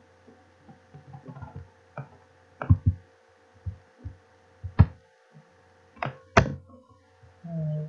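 Scattered sharp clicks and knocks from a computer mouse and keyboard being used at a desk, the loudest about three, five and six seconds in, over a steady low electrical hum.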